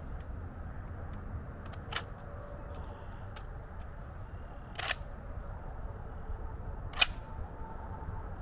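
Firearm being handled between strings of fire: three sharp mechanical clicks a few seconds apart, the loudest near the end, over a steady low outdoor rumble.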